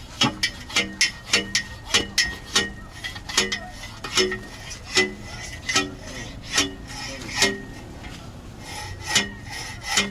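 Repeated metal-on-metal hammer strikes as a center bearing is driven onto a Peugeot 505 propeller shaft, each blow ringing briefly. The blows come quickly at first, about three a second, then more spaced out.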